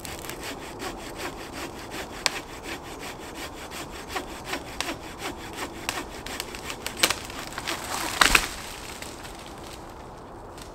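Hand saw cutting through a branch of firewood in regular back-and-forth strokes, with a louder crack of the wood about eight seconds in, after which the sawing stops.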